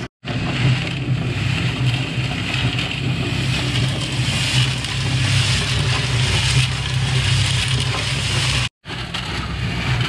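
Electric drum concrete mixer running, its motor humming steadily while the turning drum tumbles a wet mix of gravel, sand and cement with a continuous gritty rattle.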